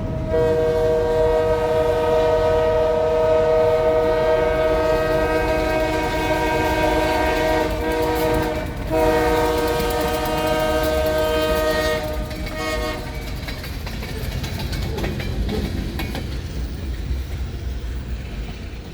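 Diesel locomotive horn sounding for a grade crossing: one long blast of about nine seconds, a second of about three seconds and a short one, followed by the low rumble of the train rolling past.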